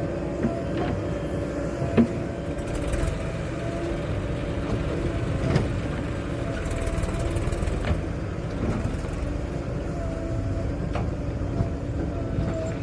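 Heavy diesel engine running steadily at a constant speed, with a few sharp metallic knocks, the loudest about two seconds in.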